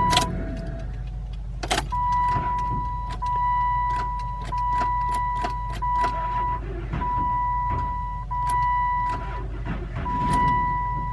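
Dodge Intrepid cabin: a steady warning tone sounds in long beeps with short breaks about every second or so, over a low steady engine hum, with many scattered sharp clicks.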